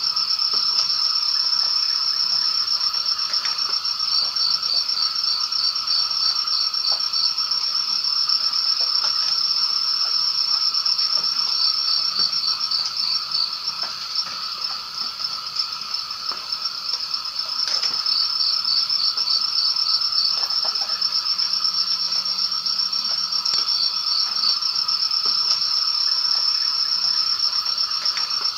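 Chorus of night insects: a steady high-pitched trill, with rapid pulsing chirp trains coming in every few seconds for a couple of seconds each, over a lower steady drone.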